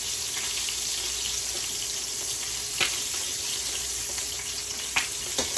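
Floured chicken legs deep-frying in hot oil: a steady high sizzle with three sharp pops of spitting oil, one about halfway and two close together near the end.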